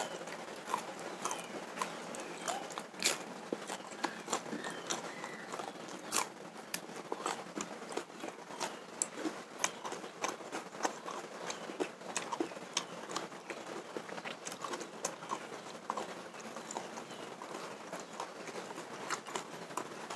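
Wet, irregular clicking and smacking of a mouth chewing raw fish, with lip smacks.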